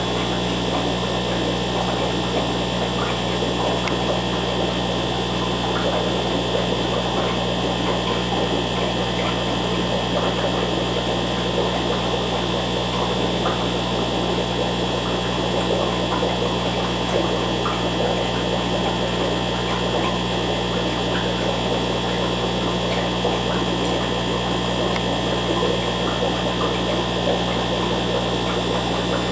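Steady hum of aquarium equipment, with a thin constant whine above it and an even fizzing noise beneath, unchanging throughout.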